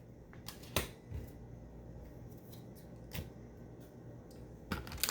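Trading cards being handled and flipped through, giving a few soft clicks and rustles, with a small cluster of them near the end.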